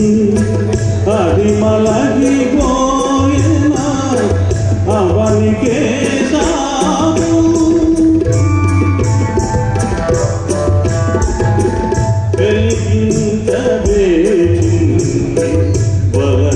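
Live Indian classical music: a voice singing gliding melodic phrases over a steady drone, with hand-drum accompaniment keeping a regular beat.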